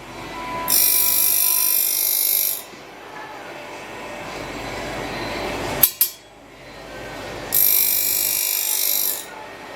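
Semi-automatic circular saw blade sharpening machine working through its cycle: a grinding wheel gives a high-pitched grind for about two seconds, twice, with a low machine hum underneath and a sharp double click about six seconds in.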